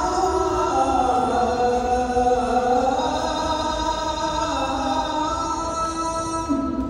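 Chant-like vocal music with long held notes that glide slowly up and down over a steady drone, cutting off abruptly near the end.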